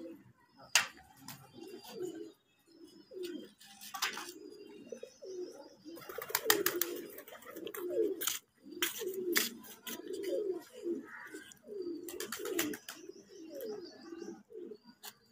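Domestic pigeons cooing repeatedly in low, rolling calls. Several short sharp noises cut in, the loudest about a second in and around six and a half seconds in.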